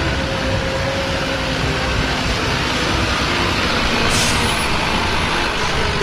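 Engine of a loaded sand dump truck running as it drives, heard as a steady rush with low rumble, with a short hiss about four seconds in.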